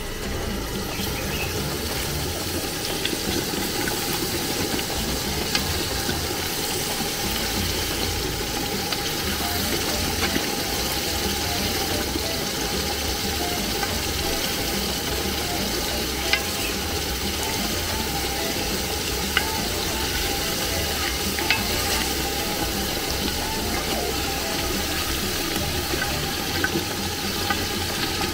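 Coconut mixture sizzling in a pot while it is stirred, cooked to draw out the oil, with a few sharp clicks of the spoon against the pot.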